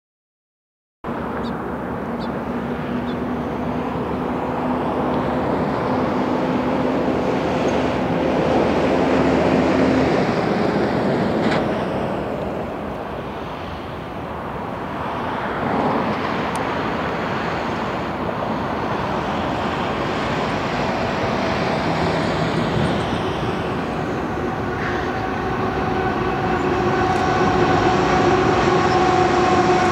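After about a second of silence, Union Pacific GE diesel freight locomotives and their train pass close by: a steady rumble of engines and wheels on rail. Over the last few seconds, as the lead units come near, a steady horn tone comes in.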